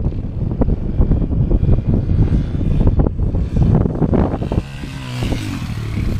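Dirt bike engine approaching across a dirt track. Wind buffets the microphone at first, then about four and a half seconds in the engine note comes through clearly as the bike climbs the bank close by, with a spray of dirt near the end.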